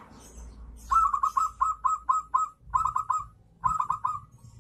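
Caged zebra dove (perkutut) cooing in the rolling 'kerot' style: three quick runs of short, clipped coo notes, the first of about eight notes starting about a second in, then two shorter runs of about four.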